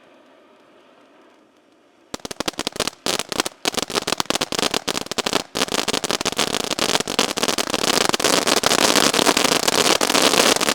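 Firework fountain erupting into dense crackling about two seconds in: rapid pops that start in scattered bursts with brief gaps, then thicken into a loud, continuous crackle.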